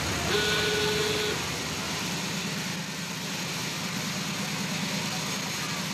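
Motor boat's engine running steadily under the rush of its wake while underway. In the first second a steady horn-like tone sounds, then cuts off.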